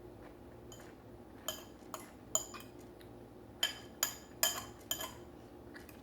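Fork clinking against a plate, several sharp ringing clinks in two quick clusters, the utensil scraping up food.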